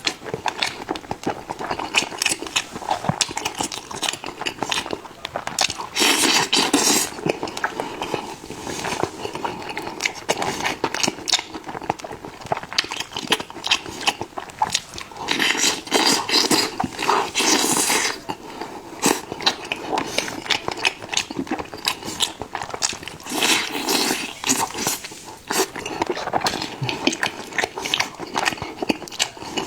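Close-miked eating: a dense run of crackling bites and chewing, with louder crunching spells several times over.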